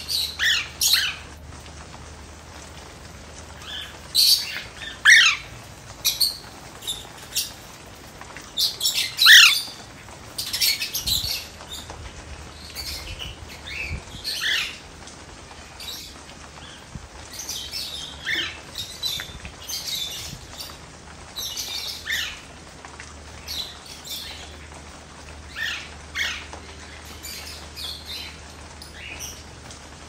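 Birds chirping and squawking in many short, sharp calls, thickest in the first half, over a faint steady hiss of light rain.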